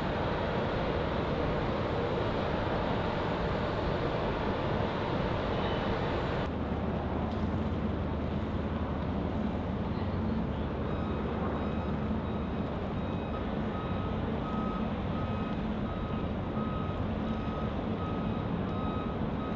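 Steady outdoor rumble and hiss, its tone changing abruptly about a third of the way in. From about halfway, a vehicle's reversing alarm beeps over it, roughly one and a half beeps a second.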